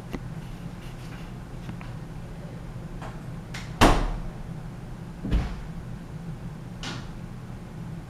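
Hampton Bay Romanesque II ceiling fan coasting down unpowered, with a steady low hum. Two loud, sharp knocks, about four and five and a half seconds in, and a fainter one near seven seconds.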